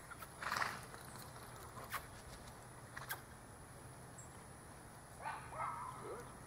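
A horse, quiet apart from a short breathy puff about half a second in, a few faint clicks, and a brief pitched call near the end that falls in pitch.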